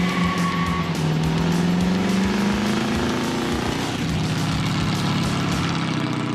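Ford Thunderbird's engine pulling hard as the car accelerates, its pitch climbing and then dropping at a gear change about a second in and again about four seconds in, under background music with a steady beat.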